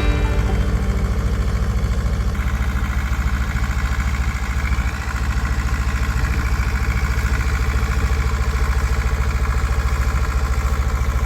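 An engine running steadily with an even low throb, its tone shifting slightly about two seconds in.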